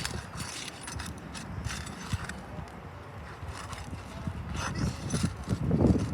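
Irregular scraping, crackling and tapping on asphalt roof shingles as a shingle is pried loose by hand and tool to find a nail still holding it.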